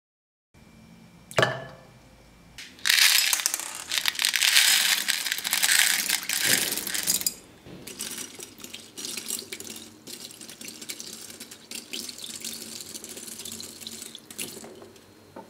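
Water pouring into a glass fishbowl for about four seconds, after a single splash about a second and a half in. Then a quieter stretch of many small plops and clicks as beads drop into the water.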